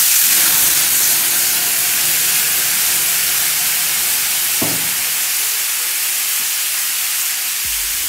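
White wine poured into a hot frying pan of sea bream fillets, deglazing it: a loud hissing sizzle of steam that starts suddenly and slowly eases.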